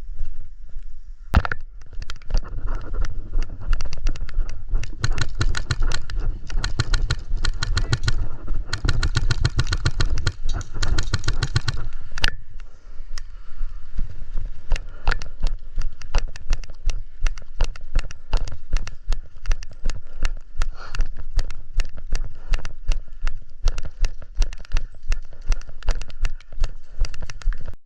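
Footsteps and the rattle of gear on a moving player, close to the microphone. The steps come at a regular walking pace of about one and a half a second in the second half, with busier, denser knocking and rustling in the first half.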